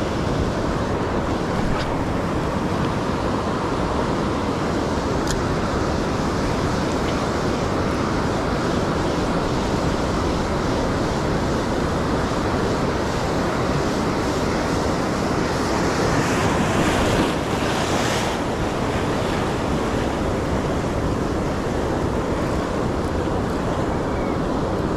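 Ocean surf breaking and washing up a sandy beach in a steady rush, with wind buffeting the microphone. A louder, hissier wash of surf comes about sixteen to eighteen seconds in.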